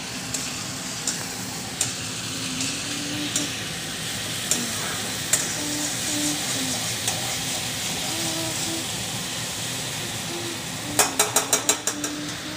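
Food frying in hot mustard oil in a pan: a steady sizzle with scattered sharp pops while it is stirred. Near the end comes a quick run of about seven clicks of the stirring utensil against the pan.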